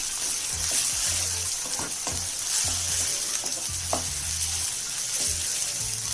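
Chopped onions and carrots frying in oil in a non-stick kadai, sizzling steadily while a wooden spatula stirs and scrapes them, with a few short knocks of the spatula against the pan. They are being sautéed with ginger-garlic paste until its raw smell cooks off.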